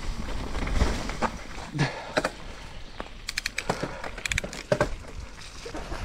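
Ghost Riot Enduro mountain bike descending a wet dirt trail: tyre rumble and wind on the helmet mic, with a run of short, sharp clicks and squeaks from the bike from about two seconds in.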